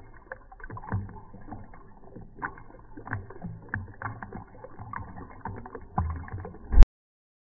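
British Shorthair cat lapping liquid from a bowl, slowed down, so the laps come as low, dull wet splashes and clicks roughly every half second to second. A sharp loud click near the end, then the sound cuts off suddenly.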